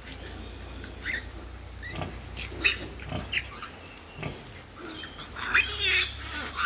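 Nursing piglets squealing in short, high-pitched calls, with a longer run of squeals about five and a half seconds in, as they jostle at the sow's teats. A steady low hum runs underneath.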